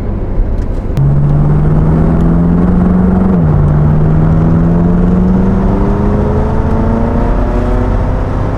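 BMW F10 M5's twin-turbo V8, running a Stage 2 tune with aftermarket downpipes, accelerating hard. The engine note comes in about a second in and climbs, drops sharply at an upshift a couple of seconds later, then climbs again more slowly through the next gear.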